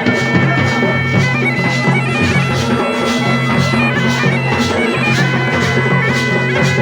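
Mashakbeen, the Garhwali bagpipe, playing a melody over a steady drone, with a drum beating about twice a second behind it: a traditional pahadi wedding band.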